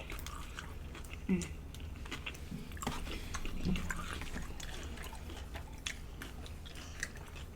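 Close-miked chewing and crunching of deep-fried, battered seafood: many small irregular crunches and mouth clicks, over a low steady hum.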